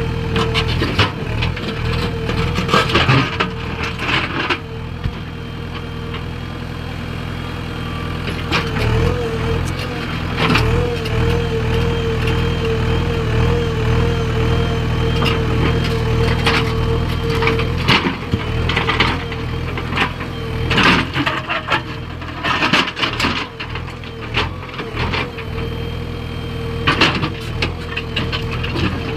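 Diesel engine of a backhoe loader running steadily with a held whine, while stones clatter and knock repeatedly as they are loaded.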